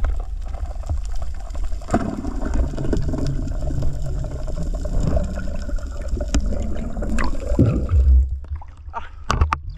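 Water rushing and gurgling against an underwater camera as it is moved fast through the sea, a steady low wash, with a few sharp clicks near the end.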